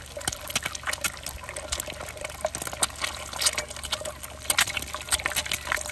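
Eggs frying in oil in a frying pan, sizzling with a rapid, irregular crackle of popping oil.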